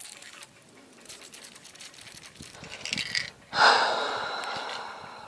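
Faint handling clicks and rattles, then about three and a half seconds in a sudden loud hiss from an aerosol spray-paint can that fades over about a second and a half.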